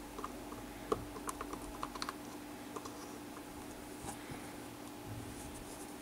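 Small plastic clicks and taps from handling a miniature model washing machine, as its detergent drawer is pulled open and a tiny detergent bottle is picked up. The sharpest click comes about a second in, with a quick cluster of lighter clicks just after and a few scattered taps later.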